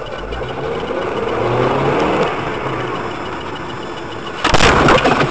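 Vehicle engine and road noise heard through a dash camera, its pitch rising and falling, then about four and a half seconds in a loud, sudden impact lasting under a second: a car collision.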